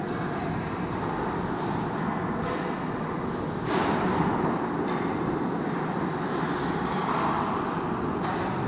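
Ice hockey game ambience: a steady rush of noise, with a sharper burst about four seconds in and another near the end.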